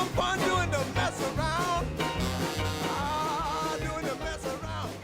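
Upbeat rhythm-and-blues soundtrack music in a boogie-woogie style, with a steady bouncing bass and a wavering lead melody line.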